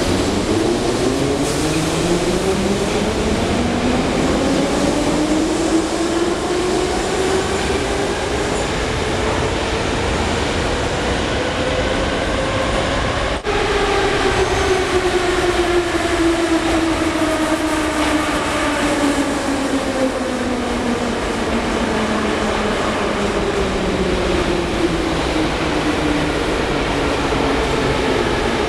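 Moscow Metro trains. First a train pulls out, its electric traction motors whining up in pitch as it gathers speed. After an abrupt break about halfway, another train comes in, its motor whine falling steadily as it slows and rolls past, over constant wheel and rail rumble.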